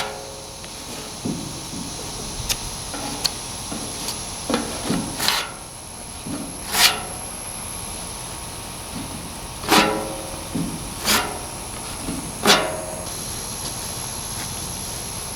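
About half a dozen sharp metallic knocks and clanks, each with a short ring, among smaller clicks of tools and metal being handled during the aluminum gas tank repair.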